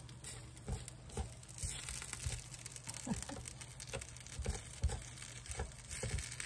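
Silicone spatula scraping and prying smashed potato that has stuck to the nonstick plates of an electric waffle iron: irregular scrapes with light taps against the plate, several a second.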